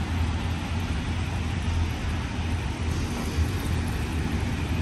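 Steady road traffic noise: an even low rumble with no distinct events.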